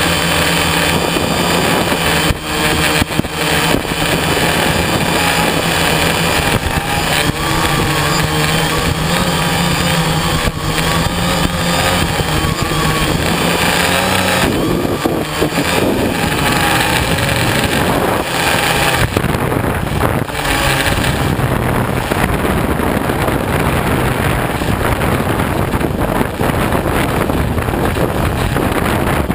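Electric motors and propellers of an RC quadcopter, heard from its own onboard camera: a loud, steady whir mixed with a rushing noise, its low tone shifting and wavering about halfway through as the craft manoeuvres.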